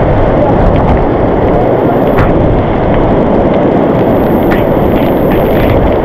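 Loud, steady rush of water from a waterfall.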